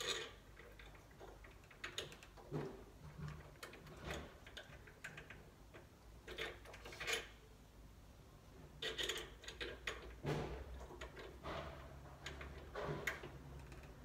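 Faint, irregular clicks and scrapes of a screwdriver and small screws working at a rim cylinder lock as its two fixing screws are driven back in.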